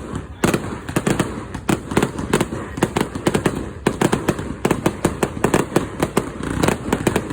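Fireworks display in full swing: a rapid, continuous barrage of bangs and crackles, many per second, after a brief lull at the very start.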